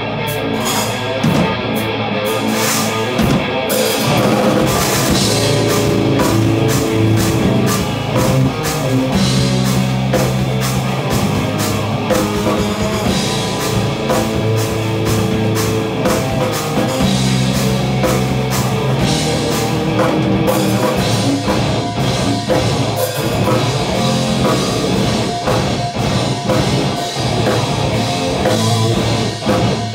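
A rock band rehearsing live: drum kit, bass guitar and electric guitars playing a heavy, metal-style instrumental piece together, with dense, steady drumming and sustained low bass notes under the guitars.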